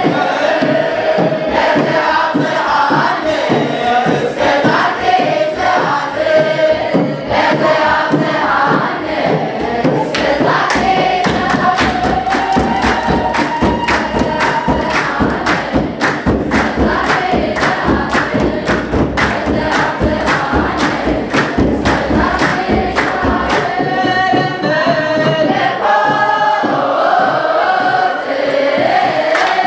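A congregation singing a hymn together in chant-like unison, with a steady beat of sharp strikes running under the voices.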